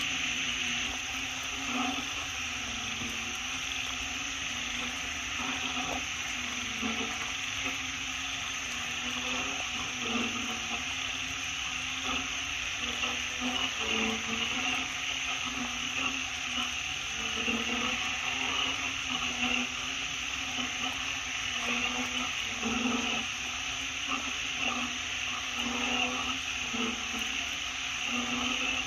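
Forest ambience: a steady high insect drone, with short low calls repeating irregularly about once a second.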